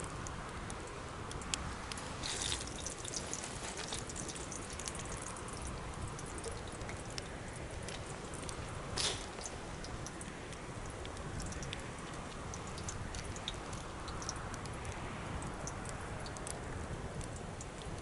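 Wood bonfire burning, with frequent small crackles over a steady rush of flame and a louder pop about nine seconds in.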